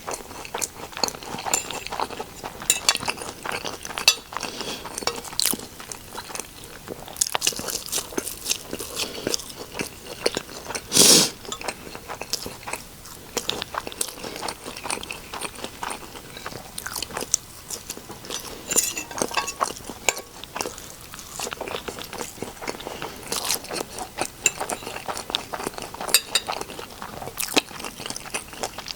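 Close-miked eating: repeated bites and chewing with crunches and mouth clicks, from a meal of eggs and air-fried cauliflower buffalo wings. One loud thump about eleven seconds in.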